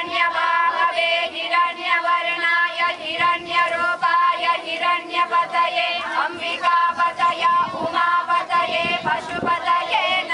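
A group of women chanting a Sanskrit Vedic hymn in unison, holding long steady notes with short breaks between phrases.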